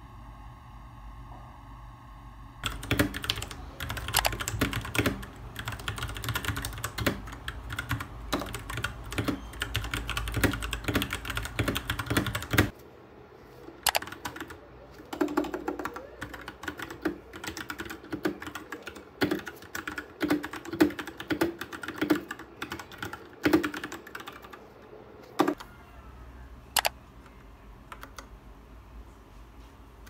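Royal Kludge RK61 mechanical keyboard with brown switches being typed on. Dense, fast keystroke clatter starts about three seconds in and thins to slower, scattered key presses after about thirteen seconds, with only a few presses near the end. Before the typing, a steady hum of several tones.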